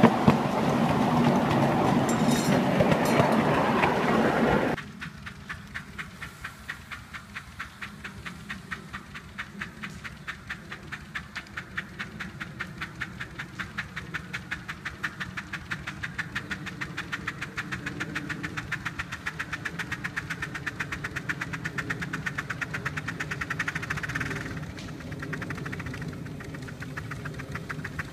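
Miniature steam railway train heard while riding behind the locomotive: loud running and rattling of the cars over the track. About five seconds in this cuts to the steam locomotive heard across an open field, its exhaust chuffing in a quick, even beat as it hauls the train.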